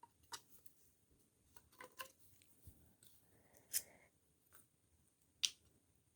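Faint, scattered clicks and taps of vacuum brushroll parts and end caps being handled and set down, with a brief rustle of handling about three to four seconds in; the sharpest clicks come near four and five and a half seconds in.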